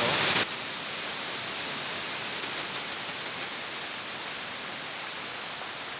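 Narada Falls, a waterfall on Mount Rainier, rushing in a steady even hiss of falling water; louder for the first half second, then it drops to a lower, constant level.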